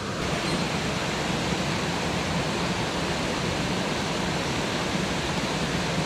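Steady rush of a mountain stream's flowing water.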